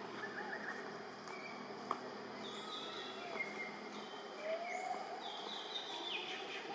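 Forest ambience: birds chirping in short high calls, some sliding down in pitch, over a steady background hiss, with one sharp click about two seconds in.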